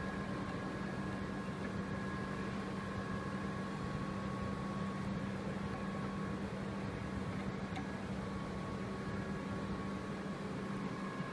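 Steady hum and fan-like rushing from a powered-on, idling electronic button attaching machine, with a low steady tone and two fainter higher ones.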